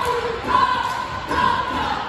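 Cheerleaders chanting a cheer in unison, several voices on held high notes in short repeated phrases.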